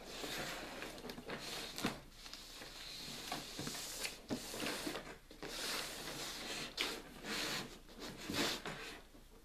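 Cardboard box being handled: sliding and scraping against a cardboard shipping carton and the packing sheet under it, with rustling and a few sharp knocks.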